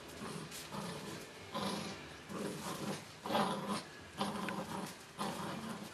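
Puppy growling in play while biting and tugging at a plush toy, in short bursts about once a second.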